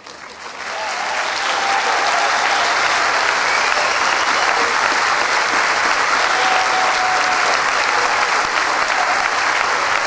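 Large crowd clapping, swelling over the first second into steady applause.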